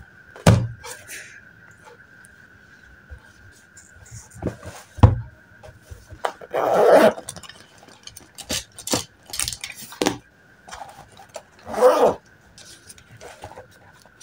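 Handling sounds at a desk: a couple of thumps as books are set down, then a fabric pencil case being unzipped in two drawn-out rasps, with clicks and rustles between. A faint steady high whine runs underneath.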